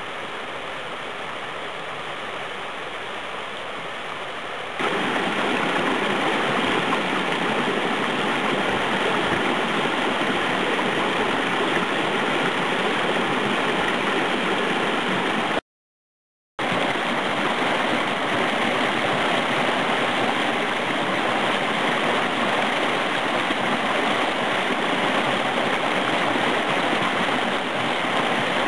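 Mountain stream water rushing and splashing over rocks in small cascades, a steady rush. It gets louder about five seconds in and cuts out completely for about a second near the middle.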